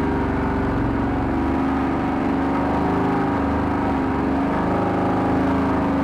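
Homemade all-terrain vehicle's engine running steadily under load as it drives along a wet, grassy track, heard from inside its tented cab.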